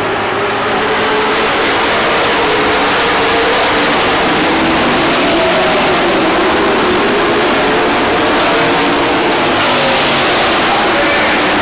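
A pack of dirt-track stock cars racing, several engines running hard at once. The pitch rises and falls as cars pass and accelerate.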